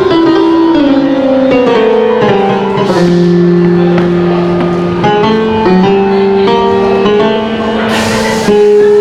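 Music with held notes that step down in pitch and then back up, and a higher melody line moving above them.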